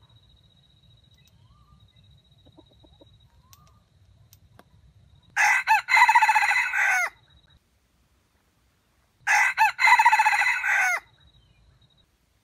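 A red junglefowl rooster crowing twice, a few seconds apart. Each crow lasts under two seconds and breaks up briefly near its start, a stuttering crow.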